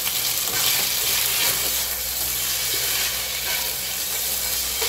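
Flat pasta noodles sizzling with a steady hiss in hot oil in a frying pan as they are turned with a wooden spatula.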